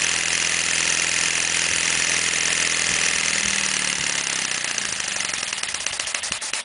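Model Comber rotary engine running fast on compressed air: a loud, steady hiss of escaping air with very rapid, even exhaust beats. In the last couple of seconds the beats become more separate and the sound eases off before it cuts off suddenly.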